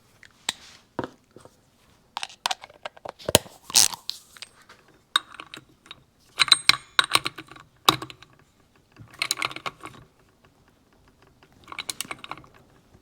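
Hand tools clinking and clicking on metal as a clutch holding tool is set on the clutch and the clutch hub nut is tightened on a Yamaha AT-1 two-stroke engine: scattered sharp clicks with several short runs of rapid clicking.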